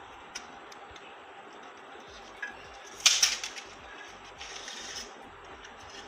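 Handling noise from an LED strip light being pressed and fitted onto a metal wall bracket: a short, loud scratchy rustle about three seconds in and a softer one near five seconds, with a small click near the start.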